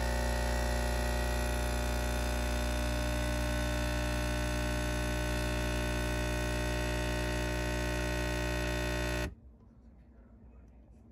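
Capsule espresso machine's pump buzzing steadily as it brews a shot, then cutting off suddenly about nine seconds in when the shot is done.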